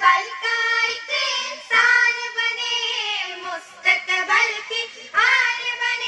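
A group of girls singing an Urdu song together into microphones, in long held notes with short breaks between phrases.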